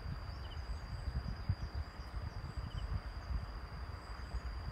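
Outdoor field ambience: a gusty low rumble of wind on the microphone under a steady, high-pitched insect trill.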